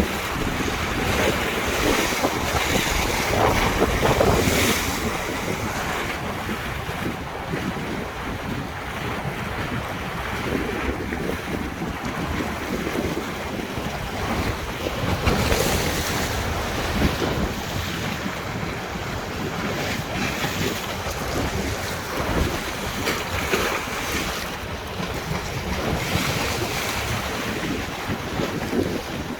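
Wind-driven river waves splashing, with heavy wind buffeting the microphone; the wash swells louder every several seconds.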